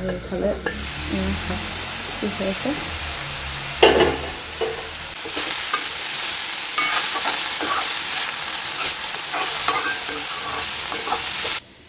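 Chopped leafy greens sizzling in hot oil in an aluminium kadai while a metal spoon stirs and scrapes them, with a loud clank about four seconds in. The sizzle cuts off suddenly near the end.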